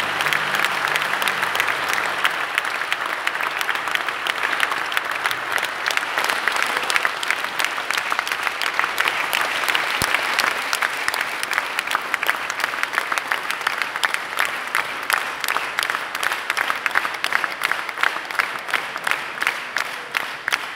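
Concert-hall audience applauding at the end of a song with orchestra. The orchestra's last held notes die away in the first second. The dense clapping thins toward the end into more separate, evenly spaced claps.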